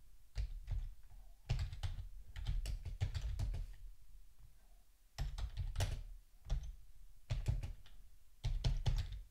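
Typing on a computer keyboard in runs of quick keystrokes, with a pause of about a second and a half midway.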